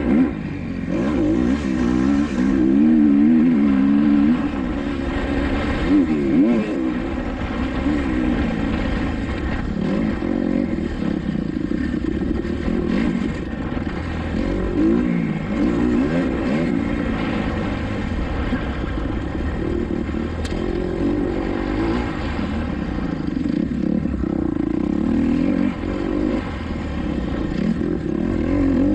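Kawasaki KX250XC single-cylinder dirt bike engine revving hard while racing on a motocross track, its pitch rising and falling again and again through the throttle and gear changes, with wind rumbling on the microphone.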